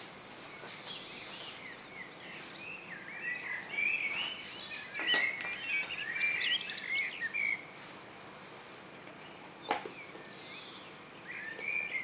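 Male common blackbird singing: a run of twittering, warbling phrases, loudest in the middle, then a pause and a short burst again near the end. A single sharp click about ten seconds in.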